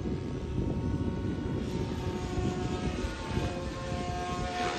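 SAB Goblin 570 electric RC helicopter flying overhead: a steady motor and rotor whine that steps up slightly in pitch about three seconds in, over a rough low rumble.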